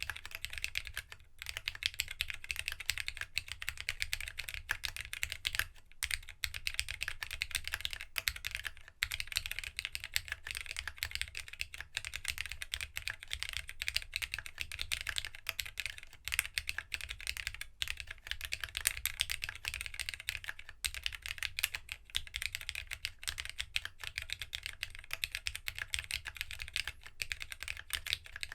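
Continuous typing on a Geonworks W1-AT mechanical keyboard, built plateless with no foam and fitted with TOHSI GSA Retro High Light keycaps: a fast, dense run of key clacks with a few short pauses.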